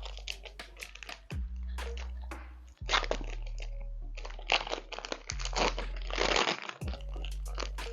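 Foil Pokémon card booster pack wrapper crinkling as it is torn open, with a longer, denser rip about six seconds in.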